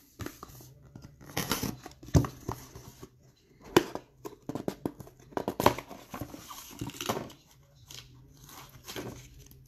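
Hands tearing off the wrapping of a small cardboard trading-card box and sliding it open: irregular rustling and crinkling of wrap and cardboard, with a few sharp taps and clicks as the box and its lid are handled.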